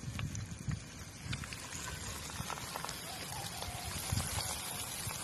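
Breaded kangkong (water spinach) leaves frying in hot oil in a wok, a steady sizzle with fine crackles. It follows about a second of low knocks from handling.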